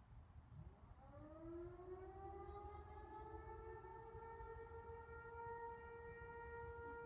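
Faint outdoor warning siren winding up about a second in, its pitch rising and then levelling off into a steady wail.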